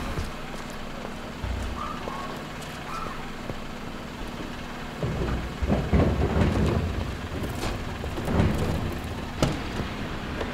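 A wheeled refuse bin is rolled out over a hard floor, making a rough rattling rumble for about two seconds past the middle and again briefly later, with one sharp knock near the end. Underneath, a refuse truck's diesel engine idles steadily.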